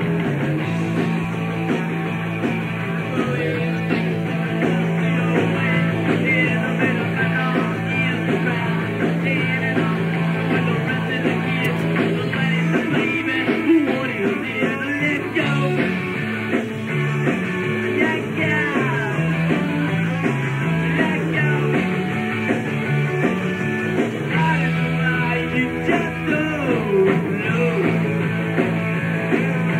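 Live rock band of two electric guitars, bass guitar and drums playing a punk-style rock song at a steady, loud level.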